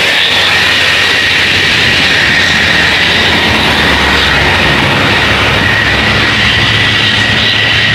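Loud engine noise of a passing bus, with a steady high-pitched whine over it. The low engine note grows stronger about halfway through.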